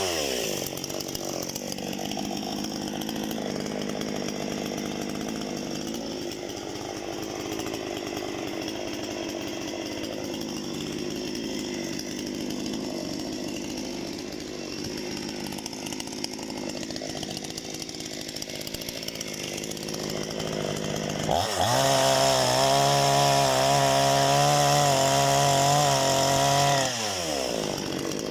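Parma BP-058 two-stroke petrol chainsaw. It comes off high revs and runs at a low idle for about twenty seconds, then is throttled up sharply to a high, steady scream for about five seconds near the end, and drops back to idle.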